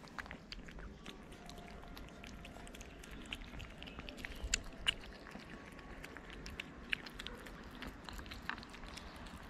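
Cats chewing wet cat food: faint, irregular wet clicks, with a few louder ones about halfway through.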